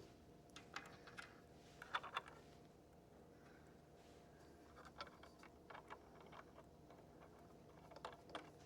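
Faint, scattered light clicks and taps of carriage-bolt hardware being handled, washers and nuts being fitted onto the bolts by hand before tightening.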